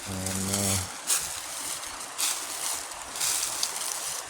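Footsteps crunching through dry leaf litter, about one step a second, over a steady outdoor hiss.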